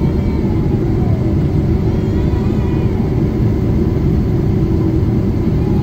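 Steady, loud jet-engine and airflow rumble inside the cabin of a Boeing 777 climbing after takeoff, heard from a window seat over the wing.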